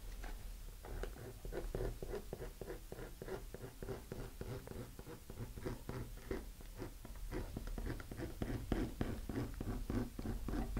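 Hobby knife blade scoring a fiberglass rocket fin in quick, repeated short scratching strokes, cross-hatching the fin's root area so the epoxy will have something to grip.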